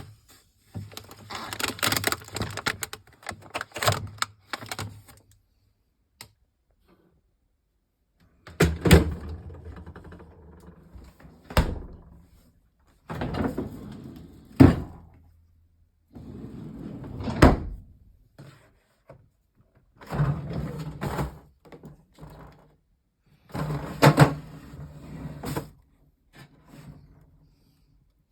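Refrigerator doors and drawers being opened and closed: several rounds of rattling and handling, each ending in a solid thud, with short pauses between them.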